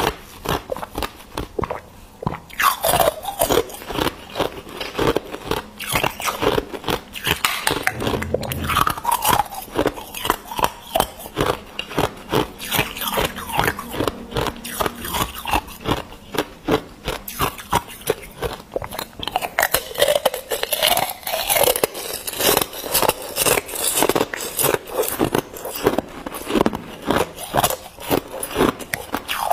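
Hard clear ice being bitten and chewed, a dense, continuous run of sharp crunches and cracks.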